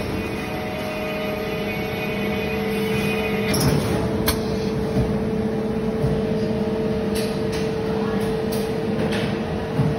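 Electric-motor stator welding machine running: a steady held tone over a lower hum, with a handful of sharp clicks from about a third of the way in.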